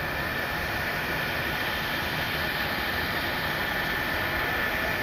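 Twin-engine jet airliner taxiing, its turbofans at idle: a steady rushing noise with a thin high whine, growing slightly louder as it approaches.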